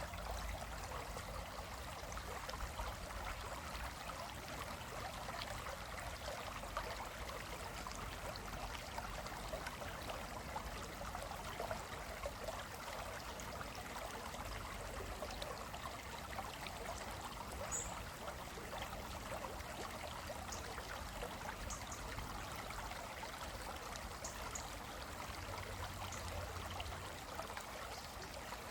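Small stream flowing over rocks, a steady babbling rush of water.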